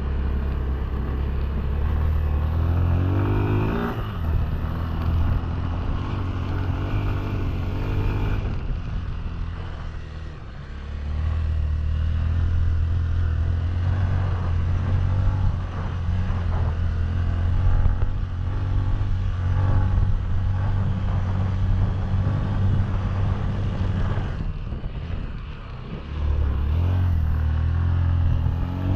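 Honda Tornado 300 single-cylinder motorcycle engine being ridden under load, geared 13 front and 43 rear. The engine holds a steady working note, eases off twice, and the revs rise again near the start and at the end.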